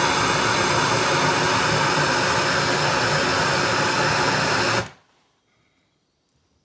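Gas blowtorch burning with a steady rushing roar while heating a copper pipe joint for brazing. It cuts off abruptly about five seconds in.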